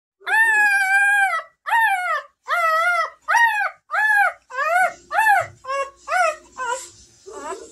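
Newborn Bernese Mountain Dog puppy crying: one long high-pitched cry, then about a dozen shorter cries that each rise and fall in pitch, getting briefer and coming quicker toward the end.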